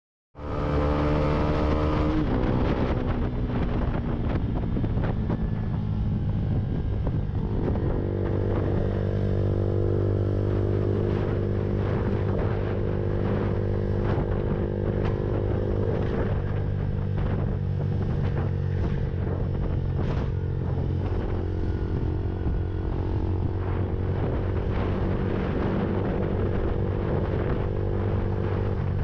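Lexmoto Viper 125 motorcycle engine running at a steady cruise. Its note shifts in pitch a few times as the revs change, with wind rushing over the microphone. The sound cuts in suddenly at the start.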